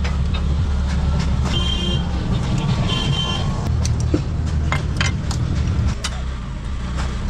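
An engine running steadily with a low hum, with scattered metallic clicks and knocks over it and two short high squeals between about one and a half and three and a half seconds in.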